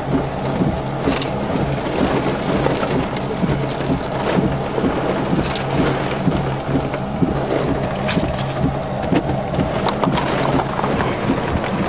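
Heavy rain and wind beating on a car, with scattered sharp ticks of drops striking the glass, over a steady low hum from the car.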